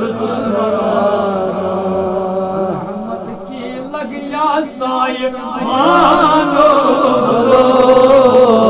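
Sung devotional chanting of a Kashmiri naat, a voice carrying a wavering, ornamented melody that grows louder about six seconds in.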